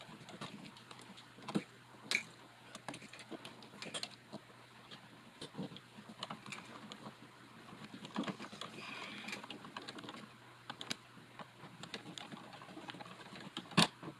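Small clicks, taps and scrapes of a screwdriver and stiff electrical wires as a light switch is worked back into its wall box, with a rustle about two-thirds of the way through and a sharp click near the end.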